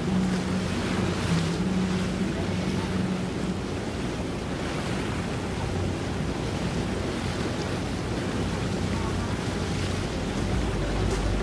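Open-water ambience: wind buffeting the microphone over lapping water. A low, steady boat-engine hum fades out after the first few seconds.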